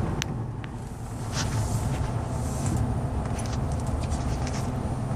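Steady low rumble of a pickup truck's engine and tyres while driving, heard from inside the cab, with a few faint light ticks.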